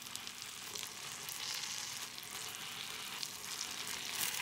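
Raw beef steak sizzling in hot melted butter in a non-stick frying pan: a steady crackling hiss that grows a little louder after about a second.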